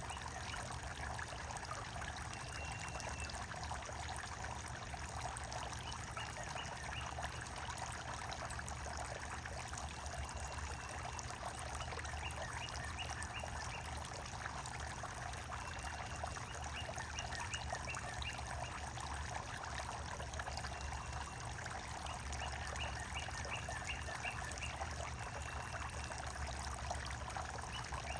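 Steady trickling and pouring of running water, with a bird calling again and again over it: short rapid runs of high notes, and now and then a single drawn-out note, every few seconds.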